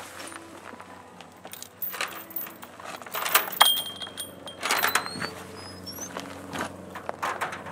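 Footsteps on outdoor steps with the knocking and rattling of a carried gun case and bag and a wooden gate, loudest in a few sharp clatters midway. A few short rising chirps sound in the middle.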